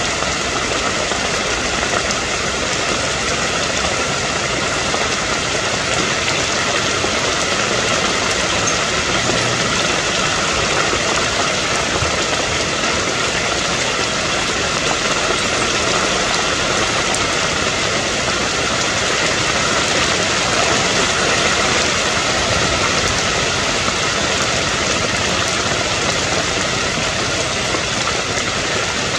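Heavy rain falling steadily, a loud, even hiss with no break.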